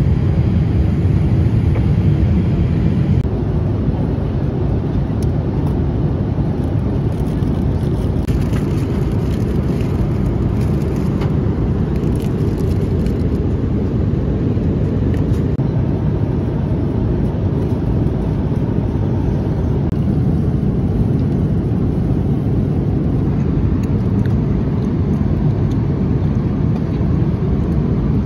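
Airliner cabin noise in flight: the steady low rumble of engines and airflow.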